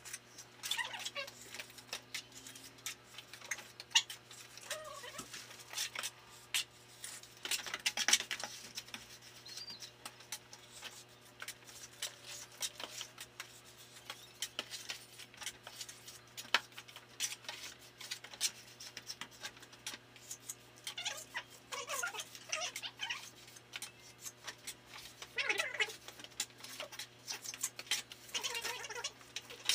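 Plastering trowel scraping over fresh cement render in short bursts of back-and-forth strokes, squeaking against the surface, with a few sharp taps between.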